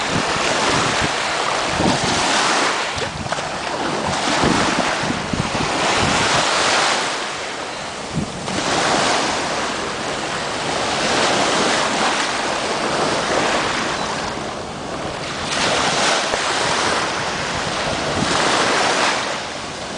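Small ocean waves washing onto the shore in swells every couple of seconds, with wind buffeting the microphone.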